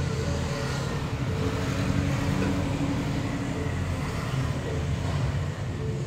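Road traffic: a steady low rumble of passing vehicle engines.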